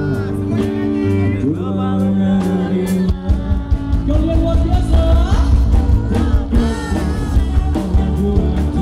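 Live rock band playing, with electric guitars, bass and drums under a male lead singer. The band comes in fuller and louder about three seconds in.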